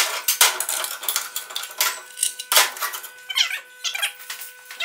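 Fast-forwarded metalworking on a catalytic converter's steel shell: rapid metallic clicks and clatter of snipping and handling the cut metal, sped up. A few high squeaky chirps come about three and a half seconds in.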